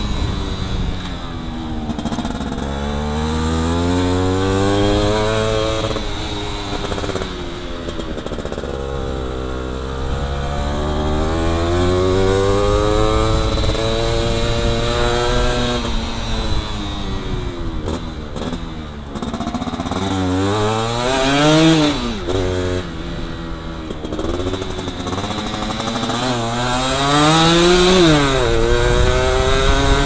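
Yamaha F1Z R 110 cc single-cylinder two-stroke engine under way, revving up and easing off over and over as the bike is ridden through tight turns. The first half has long, slow rises in pitch; the second half has quicker, sharper blips.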